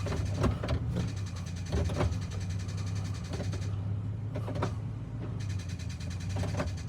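2001 Chevrolet Silverado's engine running with a steady low hum, broken by irregular clicks and knocks. This is the weird noise its 4L60E automatic transmission makes in reverse only, not in drive or the other gears.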